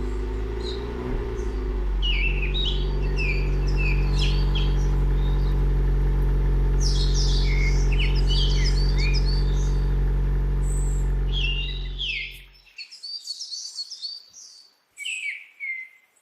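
Small birds chirping and tweeting in quick, repeated calls over a steady low hum. The hum cuts off suddenly about three-quarters of the way through, leaving only the chirps.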